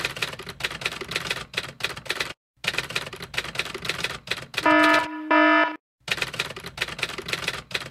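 Rapid typewriter keystroke clicks in runs with short breaks. Partway through they give way to two short, loud buzzer tones, each about half a second long, and then the typing starts again.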